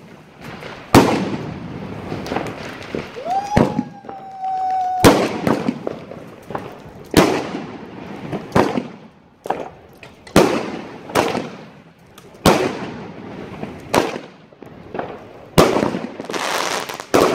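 Aerial fireworks bursting overhead: a string of sharp bangs about one to two seconds apart, each trailing off. A few seconds in, a whistle rises and then holds for about a second.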